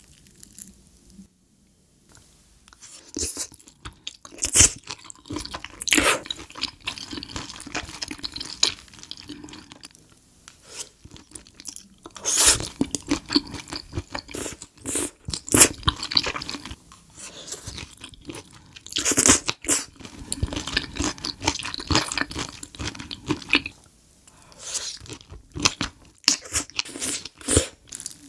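Close-miked chewing with crunchy bites, coming in several bouts with short pauses between them.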